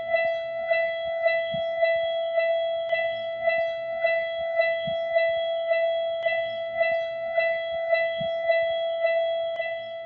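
Japanese railroad crossing warning bell ringing as the barriers come down, a steady repeating electronic ding.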